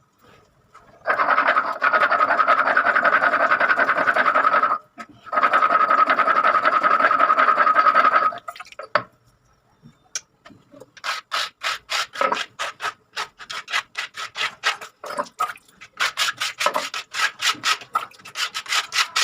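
Ginger, green chilli and whole spices being ground into a paste. There are two spells of steady grinding, about four and three seconds long, then a run of quick rubbing strokes, two or three a second, to the end.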